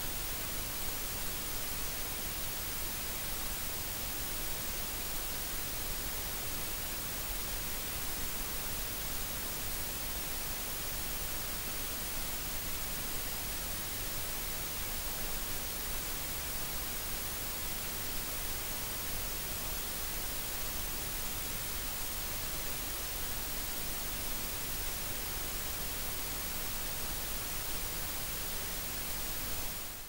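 Steady white noise: an even hiss that does not change.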